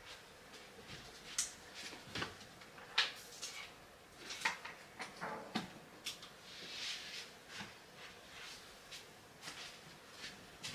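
Lamps being switched on and small household things handled: an irregular run of quiet clicks and light knocks, with a brief soft rustle a little past halfway.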